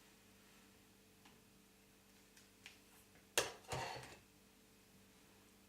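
A few faint ticks over a low steady hum, then two louder knocks about three and a half seconds in, the second one longer.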